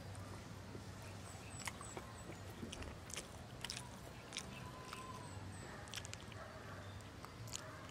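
Close-up mouth sounds of someone eating tender pork rib asado with her fingers: wet chewing and sharp lip-smack clicks, scattered irregularly and faint.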